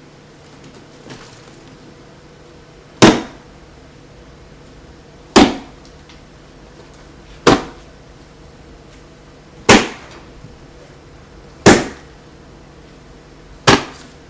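Six sharp impacts, evenly spaced about two seconds apart, each dying away quickly, over a steady low hum.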